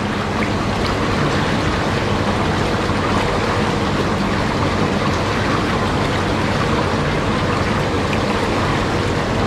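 Platinum Spas hot tub's two massage pumps running, the jets churning the water: a steady rushing of water over a faint low hum.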